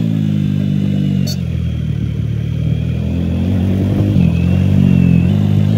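Bajaj Dominar 400's single-cylinder engine pulling the bike along at part throttle. Its note drops as the throttle eases about a second and a half in, then holds steady and lifts slightly near the end.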